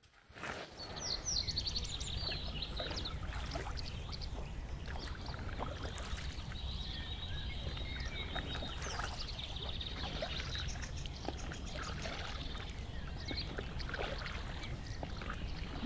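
Water splashing and lapping around a rubber boat as it is rowed with oars, with small birds chirping high in the background, most busily in the first few seconds.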